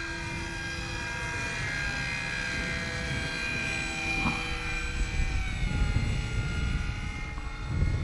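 Electric motor and propeller of a radio-controlled model airplane droning overhead: a steady whine of several tones whose pitch slowly drifts as the plane flies past. Wind rumbles on the microphone underneath.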